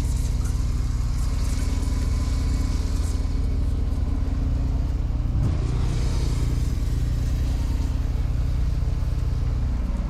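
An engine running steadily at constant speed, with a brief change in its note a little past halfway.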